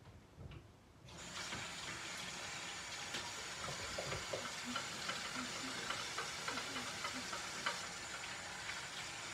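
Kitchen sink tap turned on about a second in, water running steadily into the sink.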